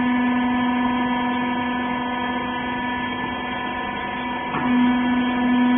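Hydraulic press baler's power unit running with a steady hum. A short click comes about four and a half seconds in, after which the hum gets a little louder.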